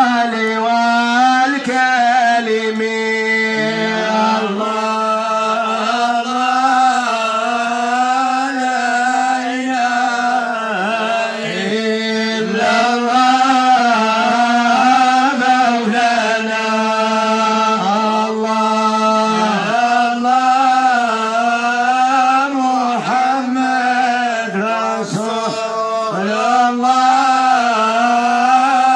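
A man singing a long, melismatic line of Moroccan Sufi madih (praise chant) into a microphone, his melody wavering and bending in slow ornamented phrases. A steady drone note is held beneath it throughout.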